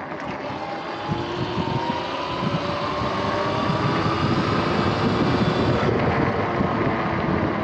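Sur-Ron X electric dirt bike's motor and drivetrain whining, rising in pitch as the bike pulls away and gathers speed, then holding steady. Wind buffets the microphone, with tyre rumble underneath.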